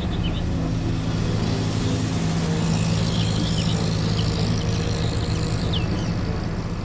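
A vehicle engine running steadily, a low even hum with faint high chirps over it.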